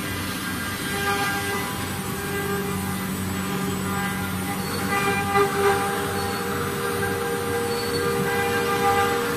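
CNC router running with its spindle set at 24,000 rpm: a steady machine hum and whine with several held tones, swelling briefly a little past the middle and again near the end.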